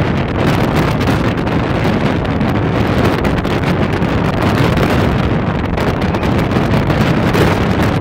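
Wind buffeting the microphone in a steady, loud rush that is heaviest in the low end.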